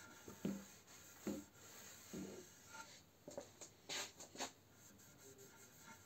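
Oil applicator pad with an abrasive, fleece-like face rubbing Osmo oil into a walnut board: three short wiping strokes about a second apart. Near the middle comes a quick cluster of light clicks and taps from handling.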